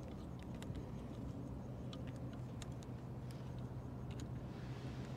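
Faint, scattered small clicks of a metal Allen key working the captive screws on a satellite dish's LNB holder, about five in all, over a steady low hum.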